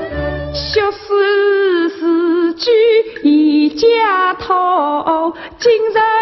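Woman singing a Yue (Shaoxing) opera aria in long, wavering notes that slide between pitches, with instrumental accompaniment.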